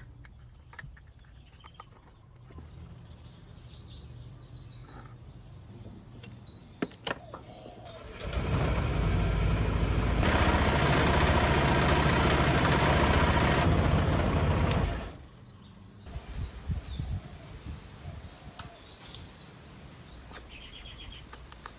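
A Honda PCX scooter's single-cylinder four-stroke engine is started about eight seconds in, runs steadily at idle for about seven seconds, then is switched off. This is a short run right after an oil refill. Before and after it come light clicks and taps of handwork on the scooter and faint bird chirps.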